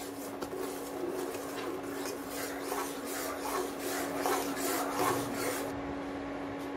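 A metal spoon stirring and scraping a steel pan of milk just curdled with lemon juice, in quick repeated strokes of about two a second, stopping a little before the end. A steady low hum from the induction cooktop runs underneath.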